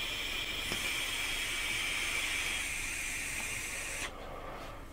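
Steady hiss of a vape being drawn on: air rushing through the atomizer as the coil fires on a long inhale. It cuts off about four seconds in and gives way to a fainter breathy exhale.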